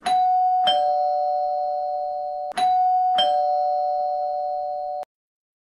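Two-tone doorbell chime, a higher note then a lower one (ding-dong), rung twice, each time ringing on steadily; the ringing cuts off suddenly near the end.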